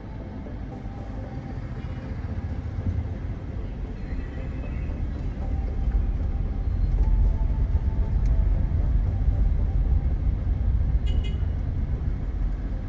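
A vehicle driving on a road: a steady low rumble of engine and road noise that grows louder about six seconds in, with a brief high chirp a little past eleven seconds.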